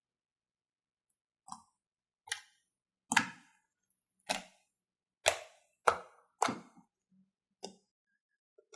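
Slime being handled: about eight short, sharp plops at uneven intervals, starting about a second and a half in.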